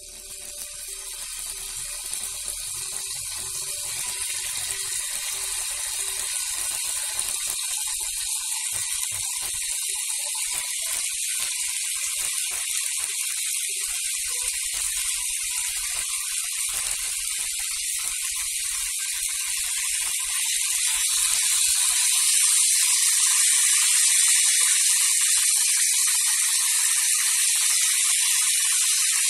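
Diced chicken breast frying in hot oil in a nonstick pan: a steady sizzle that builds up at the start and grows louder after about twenty seconds. A spatula stirring the pieces adds faint scrapes and taps.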